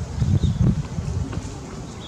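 Wind buffeting the microphone outdoors: an irregular low thudding rumble, with a faint short high chirp about half a second in.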